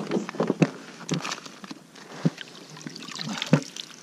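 Water splashing and trickling, with irregular small clicks and knocks.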